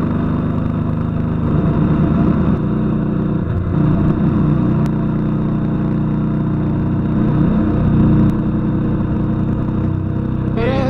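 KTM 990 Adventure's V-twin engine running steadily under way on the road, its revs easing off and picking back up a couple of times.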